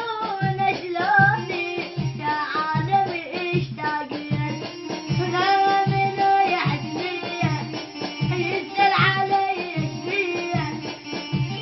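Song with a high, ornamented singing voice over a steady hand-drum beat of about two strokes a second.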